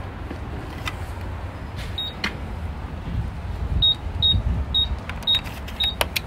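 Gas pump payment keypad beeping as its buttons are pressed: one short high beep about two seconds in, then five more about half a second apart, with small button clicks among them.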